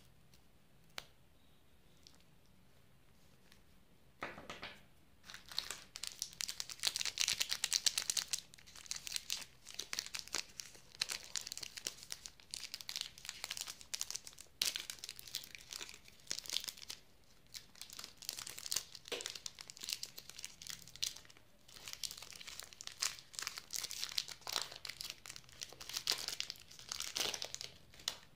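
A foil-lined Kit Kat wrapper being torn open and crinkled by hand. There are a couple of light clicks near the start, then dense crinkling and tearing from about five seconds in to the end.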